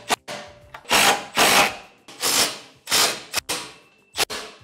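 Cordless drill-driver running in short bursts, about seven pulses, driving screws down through a laminated wood board into a metal frame.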